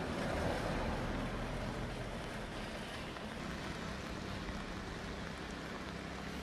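Steady wash of rain and a swollen river rushing past in flood.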